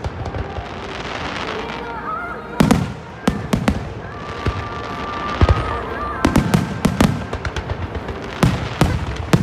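Aerial fireworks bursting in rapid clusters of sharp bangs, three or four volleys a few seconds apart, with crackling in between.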